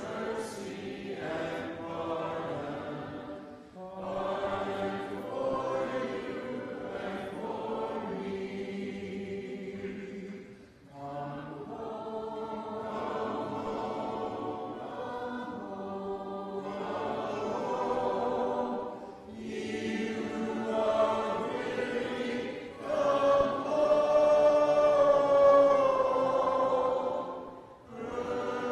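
A church congregation singing a hymn a cappella, many voices together in long held notes, with short breaths between phrases.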